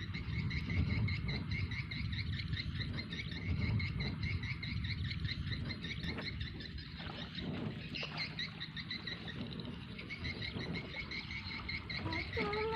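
An outdoor chorus of calling wildlife: fast, evenly pulsed chirping that runs on steadily, over a low rumble. A few clear whistled notes begin near the end.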